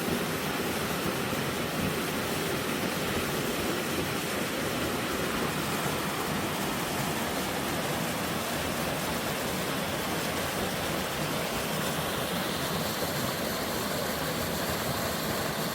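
Mountain stream rushing with melting spring snow, a steady, even rush of water.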